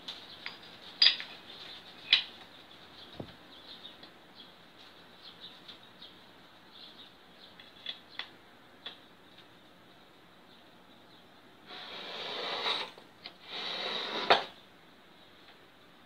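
Steel ball bearings and gearbox parts handled by hand: two sharp metal clinks about one and two seconds in and a few light ticks. Near the end come two rattling stretches of about a second each, the second ending in a loud clink.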